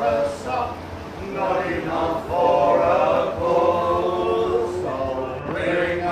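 Several men singing together unaccompanied in a folk-song style, holding long drawn-out notes.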